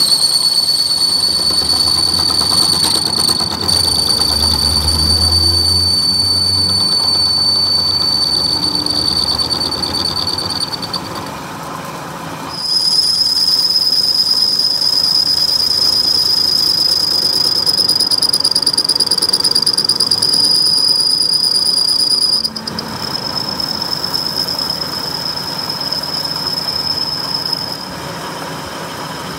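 Tool-post grinder's abrasive wheel grinding a steel crankshaft journal turning in a lathe: a steady, high-pitched squealing whine. It dips briefly about eleven seconds in, returns a little higher-pitched, and eases somewhat after about twenty-two seconds.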